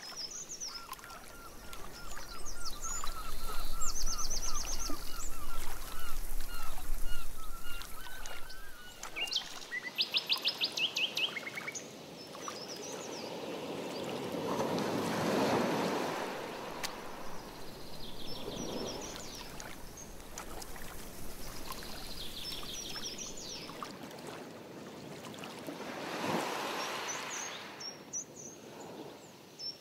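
Several birds chirping and calling, with fast trills and a long run of repeated notes in the first third. A canoe paddle swishes through the water in a few slow strokes past the middle and near the end.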